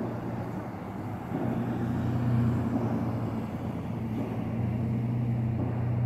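A steady low mechanical drone at a fixed pitch, dipping briefly about a second in and then holding steady. It is a continuous machinery hum, with no separate hammer blows.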